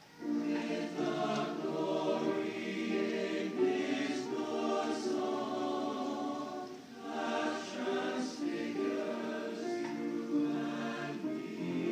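Large mixed choir singing sustained chords in several parts, coming in together just after a brief silence at the start and easing off briefly about seven seconds in.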